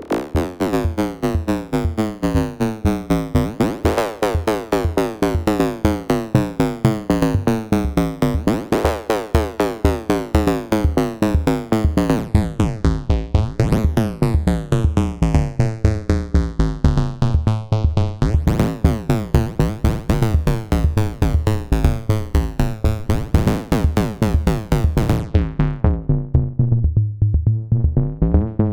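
Eurorack modular synth patch built around the ST Modular Boba Fat, clocked by Pam's Pro Workout and modulated by Maths, playing a fast repeating electronic pattern. The tone sweeps through the pulses, with a big sweep about every five seconds. Near the end the bright top end falls away, leaving a darker, lower sound.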